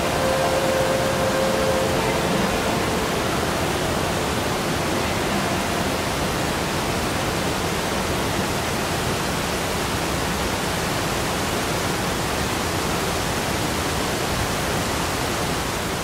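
Waterfall rushing: a steady, even noise of falling water.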